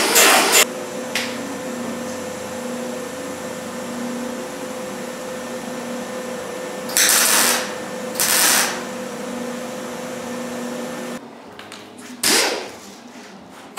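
A grinder runs briefly on sheet steel at the start, then two short MIG weld tacks crackle for about half a second each, over a steady hum. Near the end the grinder gives one short burst and winds down in pitch.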